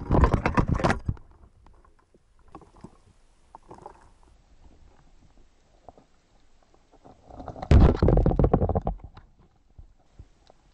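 Underwater spearfishing sounds: a loud burst of crackling knocks at the start. About seven seconds in, a second loud burst of clattering comes as a speargun shaft strikes a mullet and the fish thrashes on it. Faint scattered clicks fill the time between.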